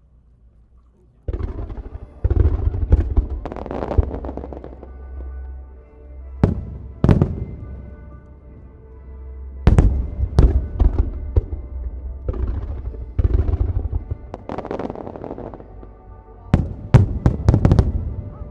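Aerial firework shells bursting in rapid volleys over music with held tones, starting about a second in; sharp bangs come in clusters, the loudest in the middle and near the end.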